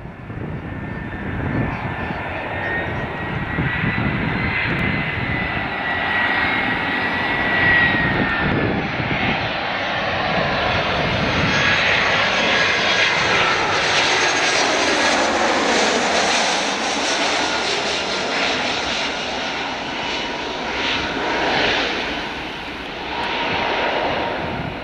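Airbus A319-112 jet engines on final approach with landing gear down, passing low overhead. A high whine is heard as it comes in, then the engine noise swells as it passes over and its pitch falls as it flies away.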